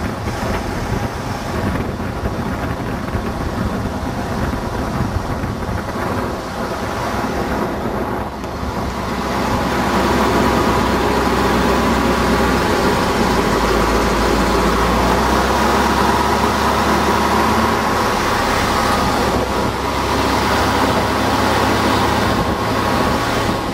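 1970 Ford 352 V8 engine running on hydrogen gas alone, with no gasoline in the system. It speeds up and gets louder about ten seconds in, then holds there steadily.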